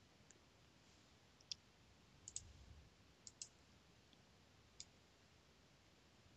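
A handful of faint, short clicks from working a computer mouse, spread irregularly across otherwise near-silent room tone.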